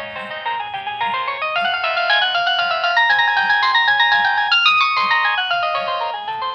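Nokia 6080 ringtone playing: a fast synthesized melody of quick note runs sweeping up and down, over a steady low beat.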